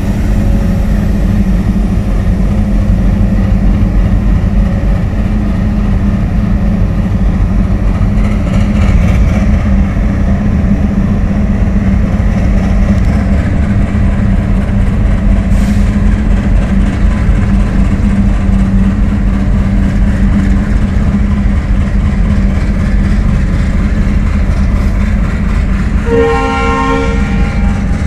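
Twin ALCO WDM-3A diesel locomotives, each with an ALCO 251 V16 engine, chugging loudly as they pull away and gather speed close by, with a steady heavy low throb. About 26 seconds in, a multi-tone horn sounds once for about a second and a half as the coaches roll past.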